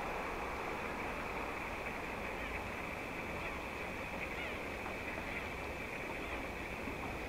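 Steady outdoor background hiss and rumble across open water, with a few faint, short, high chirps scattered through it.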